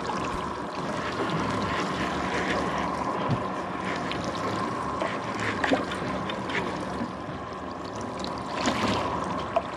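Water sloshing and lapping against a drifting boat's hull under a steady hiss, with a faint steady hum, while a conventional fishing reel is cranked to bring a fish up; a few light clicks.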